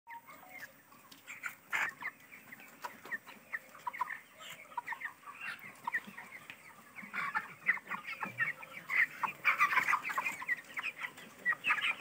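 A flock of 24-day-old broiler chickens calling: many short, high-pitched peeps and clucks overlapping, growing busier about halfway through.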